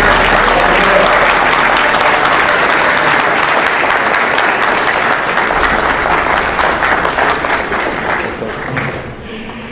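Audience applauding: a dense patter of many hands clapping that thins out and fades near the end.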